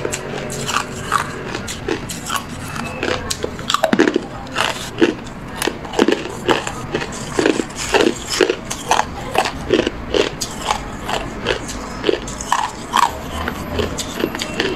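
Hard clear ice being bitten and chewed close to the microphone: an irregular run of sharp cracks and crunches, several a second, with a dense flurry about four seconds in.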